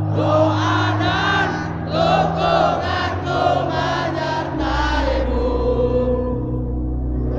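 A huge stadium crowd of football supporters singing a slow song together in unison. About four and a half seconds in, the higher voices thin out and a lower held note carries on.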